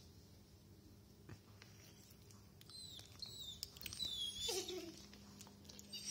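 Saluki dog whining: a run of short, high, squeaky whimpers from about two and a half seconds in, then a brief lower whine that drops in pitch.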